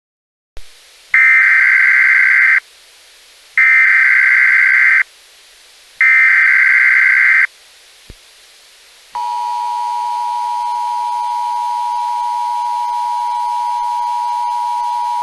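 Emergency Alert System alert opening: three short, loud bursts of screeching SAME header data, each about a second and a half long and evenly spaced. About nine seconds in, the steady two-tone EAS attention signal (853 and 960 Hz) starts and holds.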